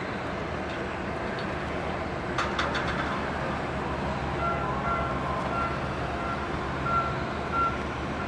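Airport ground-support vehicle engine running steadily, with a brief metallic clatter about two and a half seconds in. From about halfway, a high warning beeper sounds at regular intervals, the reversing or motion alarm of the vehicle.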